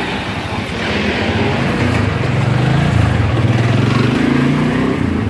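Motor vehicle engine running with a low, wavering hum over street noise, growing louder toward the middle and easing off near the end.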